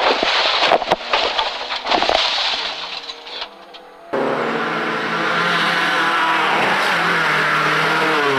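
Rally car crashing: a string of sharp knocks and impacts over rushing noise, dying away over about three seconds. About four seconds in, the sound cuts abruptly to a rally car engine running steadily, its pitch wavering slightly.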